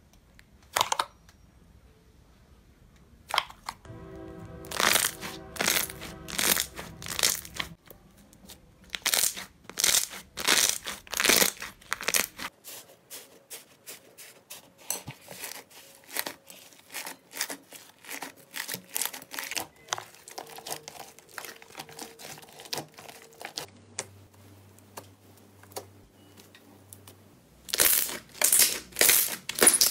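Slime being squeezed, pressed and poked, making runs of sharp crackling pops and clicks. The pops come in clusters, busiest in the first third and again near the end.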